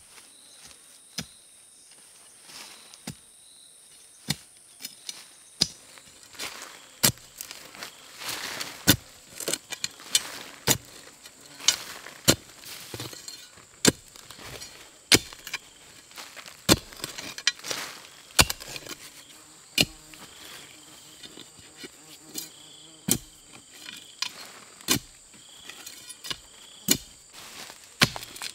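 A digging tool striking into dry earth and leaf litter in steady strokes about every second and a half, over a steady high buzz of insects.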